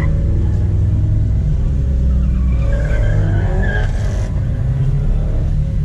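Car's V8 engine running at low speed with a deep, steady rumble. A brief wavering higher sound rises and falls about halfway through.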